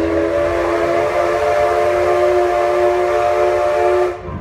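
Antique steam locomotive's whistle blowing one long, steady blast of several held tones that cuts off sharply near the end, over the low rumble of the train running on its track.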